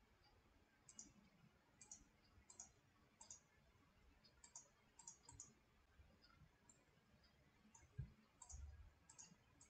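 Faint computer mouse clicks, mostly quick press-and-release pairs, about one a second, selecting faces of a model one by one. A soft low thump about eight seconds in.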